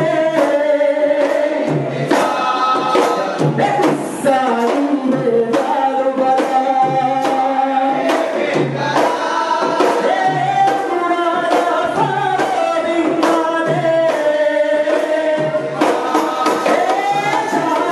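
Maldivian boduberu music: several large hand-beaten boduberu drums keep a steady, driving beat while a group of men sings in chorus over them.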